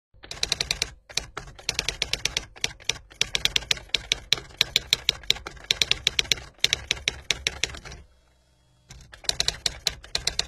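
Typewriter keys clacking in quick runs of keystrokes, with short breaks and a pause of about a second near the end.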